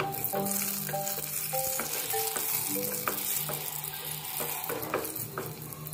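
Chopped onion sizzling in hot oil in a small nonstick saucepan as it is browned, with a wooden spatula stirring and scraping it around the pan bottom.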